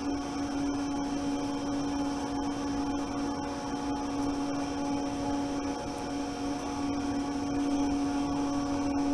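Steady machine hum: a drone with several fixed higher tones over an even hiss, unchanging in level.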